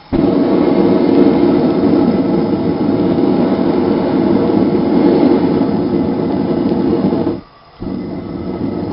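Propane gas forge burner, running without a blower, giving a loud steady rush of flame that comes on abruptly, cuts out for about half a second near the end and returns quieter.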